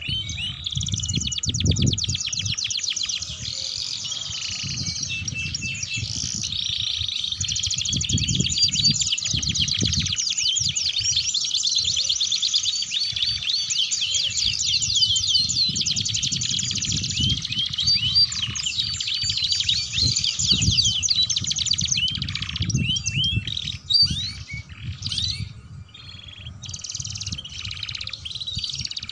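Domestic canary singing at full voice: long, fast rolling trills and rough chattering phrases, thinning out a few seconds before the end. A low rumble runs underneath.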